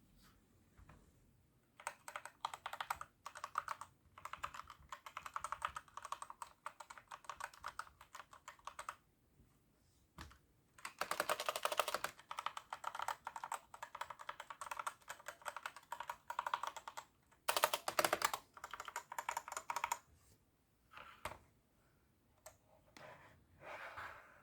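A custom mechanical keyboard with linear red switches and PBT pudding keycaps being typed on in fast runs of keystrokes. There is a brief pause about ten seconds in, two especially fast, loud flurries, and a few scattered single keypresses near the end.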